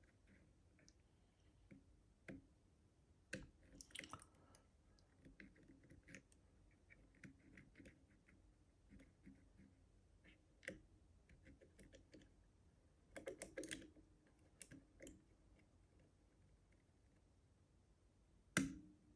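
Faint small clicks and scrapes of picking tools working the levers inside an Easi-T lever lock, coming in scattered bursts. Near the end there is one sharper metallic knock that rings briefly.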